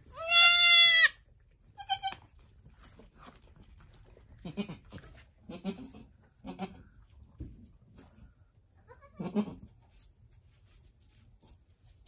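Angora goats bleating: one loud, high-pitched bleat in the first second, a shorter, fainter bleat about two seconds in, then several soft, low calls spread through the rest.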